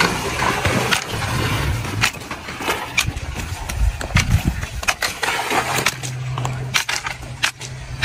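Sandals slapping and scuffing on sandy dirt as someone walks, with irregular clicks over a low hum.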